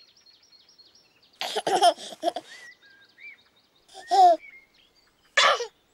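A baby giggling in three short bursts, over faint, quick, high twittering of small birds.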